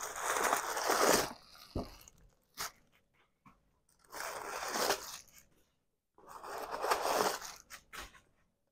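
Tissue paper crinkling in three bursts as the packing stuffing inside a handbag is handled.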